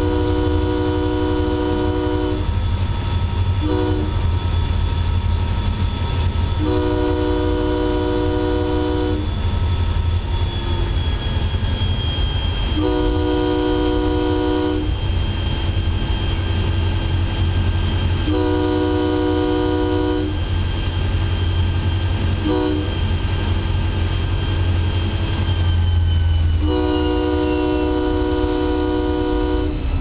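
Locomotive multi-chime air horn blowing seven blasts: long, short, long, then long, long, short, long, the grade-crossing warning signal. Under it runs the constant low rumble of the moving locomotive.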